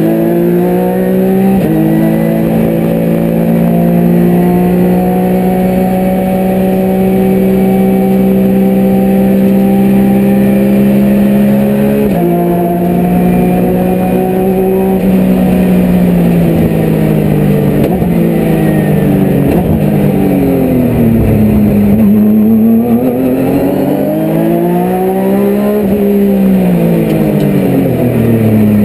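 Porsche 911 GT3 Cup race car's flat-six engine at full throttle, heard from inside the cockpit. Its pitch drops suddenly at an upshift about a second and a half in and again about twelve seconds in, holding high in between. In the second half the revs fall and climb twice as the car brakes into the corners and accelerates out.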